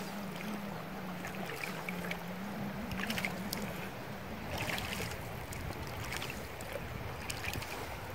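Steady rush of river water around a small boat moving downstream, with short splashes and lapping against the hull every second or two. A faint low hum wavers in the first half and fades out.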